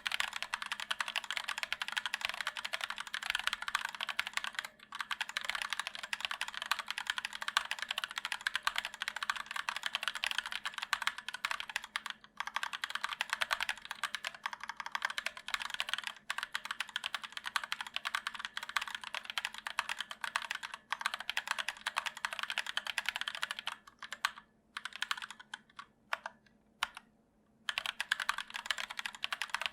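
Fast, continuous typing on an ErgoDox EZ split mechanical keyboard with Durock POM linear switches and sculpted PBT keycaps: a dense run of key clacks, thinning to scattered strokes with short pauses about 24 seconds in, then picking up again.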